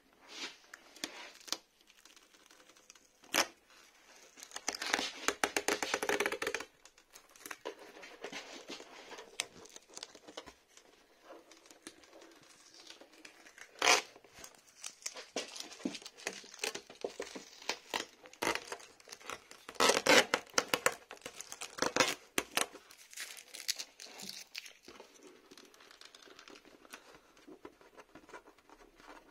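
Painter's masking tape being peeled slowly off a thick plastic RC truck body, crackling and tearing in uneven stretches with sharp clicks. It is loudest about five seconds in and again about twenty seconds in.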